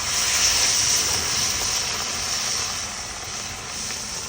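Spot fish frying in hot oil: a loud, steady sizzle.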